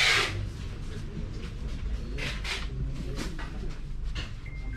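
A steady low hum with a few short scuffing noises, the loudest right at the start.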